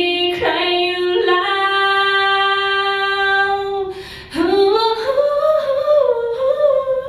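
A woman singing unaccompanied, holding one long steady note for about three seconds, then, after a short breath, starting a higher phrase that climbs and wavers.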